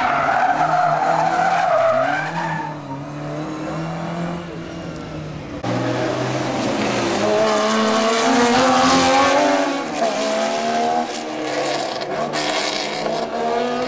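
Historic rally car engines revving hard through tight corners, the pitch rising and falling with throttle and gear changes. About halfway in, after an abrupt change, the engines of Porsche 911 rally cars, flat-sixes, take over and run louder.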